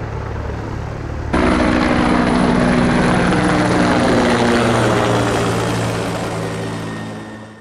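Bell 412EPi helicopter's four-blade main rotor and twin turboshaft engines running: a steady low hover sound, then much louder with a steady whine as it passes directly overhead about a second in, fading away near the end.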